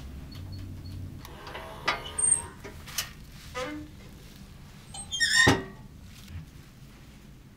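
A wooden cupboard door and shelf being handled, with a few clicks and knocks, then a small plastic bag crinkling as it is picked up, loudest about five seconds in.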